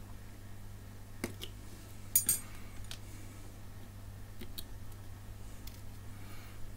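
Small metal hand tools clinking and tapping against a circuit board and the workbench during soldering: a few light ticks and one louder, ringing metallic clink about two seconds in, over a steady low hum.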